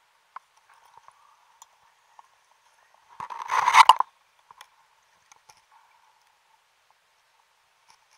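Muffled underwater sound picked up through a diver's camera housing: scattered faint clicks, then one loud rushing burst about three seconds in that lasts under a second.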